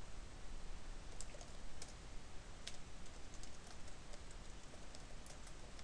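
Typing on a computer keyboard: irregular keystroke clicks, a few at a time, over a faint steady hiss.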